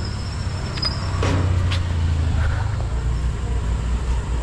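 Steady low engine rumble, like a vehicle or machinery running, with a few brief clicks about a second in.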